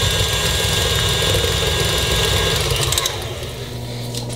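KitchenAid stand mixer running, its flat beater turning through softened butter, then switched off about three seconds in.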